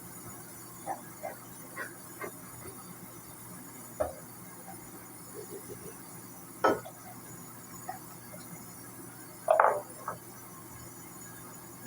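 Irregular clinks and knocks of dishes and dishwasher parts being handled during cleaning, with two louder knocks about seven and ten seconds in, over a faint steady hum.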